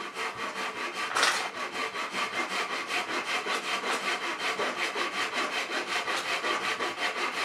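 Hand saw cutting through wood in quick, even back-and-forth strokes, about five a second.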